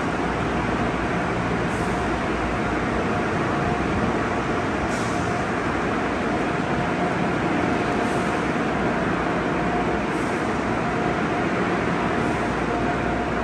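Conveyor car wash tunnel running: spinning cloth wrap and top brushes, water spray and drive motors together make a steady, dense wash of noise. A faint steady whine runs underneath, and a few brief hissing swishes come and go.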